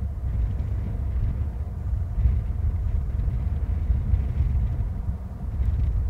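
Low, uneven rumble of wind buffeting the microphone.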